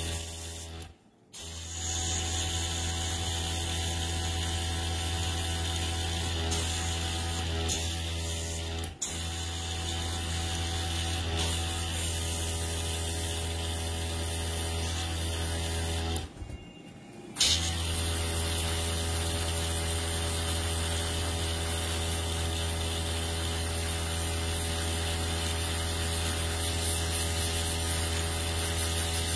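Airbrush compressor running with a steady hum while air hisses from the airbrush spraying paint onto a nail tip. The sound cuts out briefly about a second in, and again for about a second just past the middle, then starts up again with a click.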